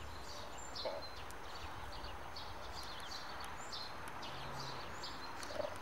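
Small birds chirping faintly, many short high notes scattered throughout over a steady outdoor hush, with a soft lower sound about a second in and again near the end.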